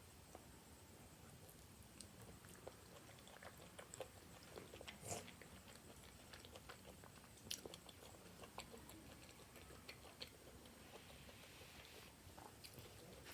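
Faint chewing and wet mouth clicks from someone eating pork momos (dumplings), with a few sharper clicks along the way.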